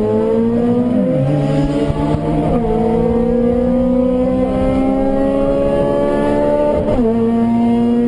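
Honda Civic four-cylinder engine pulling hard through the gears. Its pitch climbs steadily and drops sharply at an upshift about two and a half seconds in, then climbs again to a second upshift near the end.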